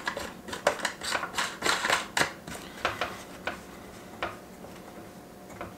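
Hard plastic clicks and knocks from a Garmin fish finder's mounting bracket being handled and its side knob turned. They come in quick succession at first, then only a few scattered ones.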